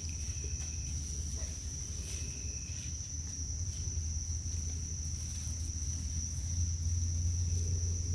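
Crickets trilling in one continuous high, steady tone, over a steady low rumble. Two short, fainter notes sound within the first three seconds.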